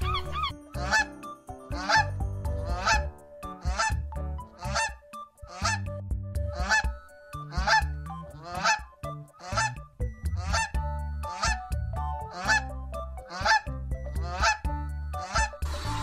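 An animal giving short calls over and over, about one a second, each sliding up in pitch, over background music.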